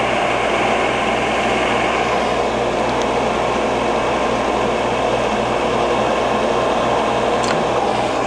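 Tschudin HTG-400 cylindrical grinder running steadily, its grinding spindle and hydraulics going, as the automatic plunge infeed brings the wheel down to zero for spark-out.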